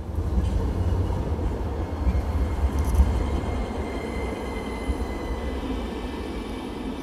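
Tram running on its rails: a low rumble that rises at the start, with a thin high whine coming in about two seconds in.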